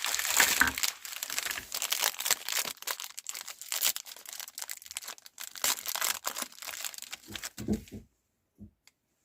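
Plastic wrapper of a Dark Fantasy Choco Fills packet crinkling and crackling as it is handled, stopping about eight seconds in, with a couple of soft thumps near the end.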